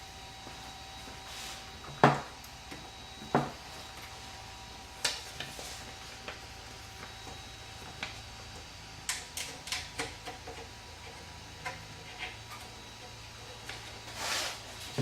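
Scattered light clicks and knocks of hands working at a 3D printer's bed, tightening its levelling knob, over a faint steady electrical hum. The knocks are loudest about two seconds in, and there is a quick run of clicks around the middle.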